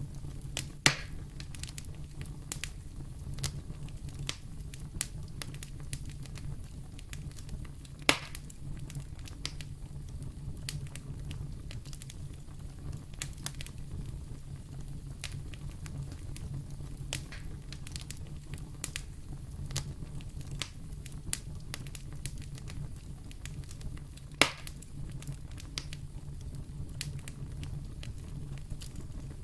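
Wood fire burning in a fireplace: a steady low rumble with frequent small crackles and three sharper pops, about a second in, about eight seconds in and near the three-quarter mark.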